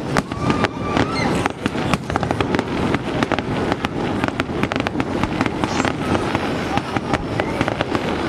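Fireworks display going off continuously: a dense, irregular stream of sharp bangs and crackles, many per second.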